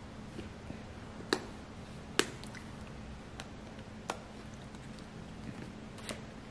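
Plastic lid of a black pepper spice container clicking and snapping as it is pried and bitten open: four sharp clicks spread out, the loudest two in the first half.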